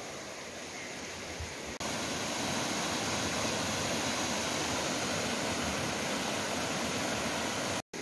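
Small rocky creek cascading over boulders: a steady rush of running water, which becomes louder and fuller about two seconds in and drops out for an instant near the end.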